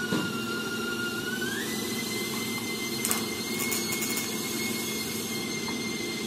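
Steady shop machine whine over a low hum, its pitch stepping up about a second and a half in, with a short crackle of a tack weld about three seconds in.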